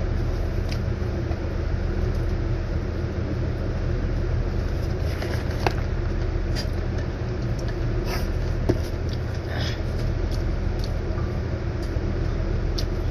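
Steady low hum of running machinery, with scattered faint clicks and taps from eating and handling a plastic drink cup.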